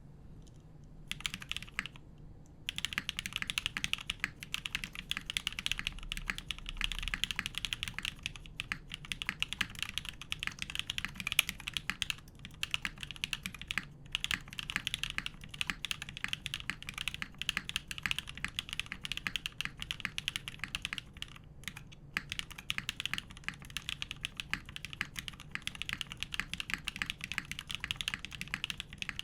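Continuous fast typing on a custom mechanical keyboard: lubed frankenswitches with Kailh x NK_ Cream stems, Cherry Black top and JWK H1 bottom housings, under GMK Modo Light keycaps on an aluminum plate, giving a steady run of crisp clacks. The typing starts about a second in, with a few brief pauses.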